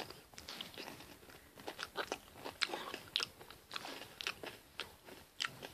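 An Oreo cookie being chewed close to the microphone: soft, irregular crunches and crackles, several a second.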